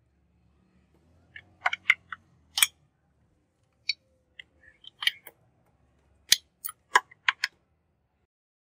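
Sharp metal clicks and taps, about fourteen in loose clusters, with quiet gaps between: an exhaust header pipe and its fittings being handled and fitted to a motorcycle engine's exhaust port.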